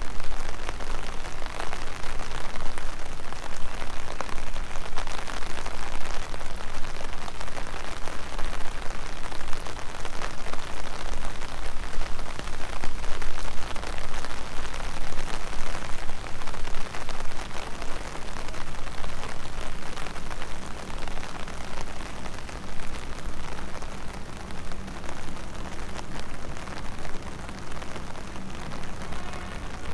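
Steady rain falling, a dense hiss of countless drops pattering on the ground and surfaces around, easing slightly in the last third.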